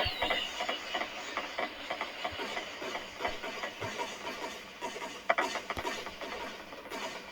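Fireworks crackling with a dense run of small pops, one sharper bang about five seconds in, and a falling whistle right at the start.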